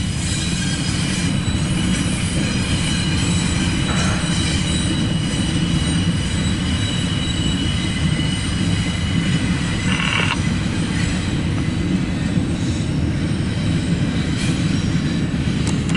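CSX Q016 intermodal train of double-stacked container cars rolling steadily past, its wheels making a continuous low rumble on the rails. Faint steady high wheel-squeal tones ride over the rumble, with a short brighter squeal about ten seconds in.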